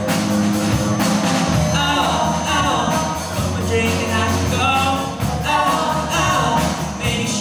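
Live rock band playing with drum kit and electric guitars, a singer's voice carrying the tune over them.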